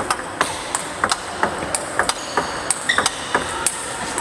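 Table tennis rally: the ball clicks sharply off the paddles and bounces on the table about two or three times a second. A paddle is faced with Sueke Phantom II Attack tacky Chinese rubber. Uneven extra clicks come from rallies at neighbouring tables.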